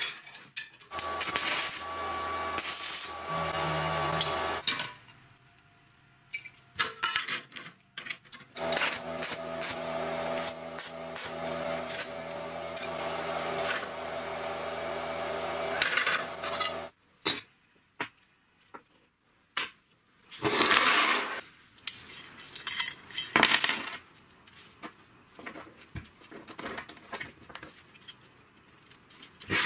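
Metalworking at a bench. An electric power tool motor runs steadily for a few seconds, stops, then runs again for about eight seconds while working a steel plate. Between the runs and afterwards, steel parts and hand tools clink and knock, with a couple of short noisy bursts and small clinks of a wrench on a bolt near the end.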